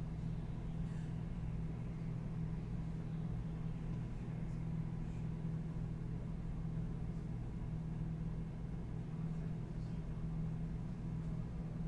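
Steady low hum of room tone, with a few faint soft ticks.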